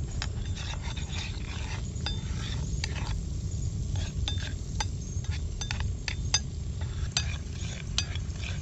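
Metal spoon stirring and scraping melted butter and garlic in a metal frying pan, clinking against the pan many times at an uneven pace, while the butter sizzles gently over a low wood fire. A steady low rumble runs underneath.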